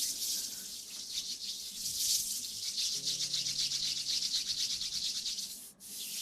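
ASMR hair-washing sound: fast, steady scrubbing and rustling right at the microphone, pausing briefly near the end.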